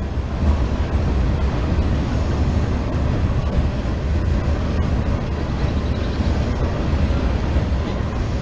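Wind buffeting the microphone: a steady, loud low rumble with a hiss over it.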